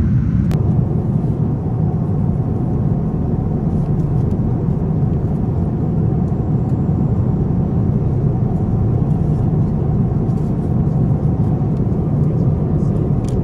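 Steady low rumble of jet airliner cabin noise in cruise, with a few faint light clicks of cutlery near the end.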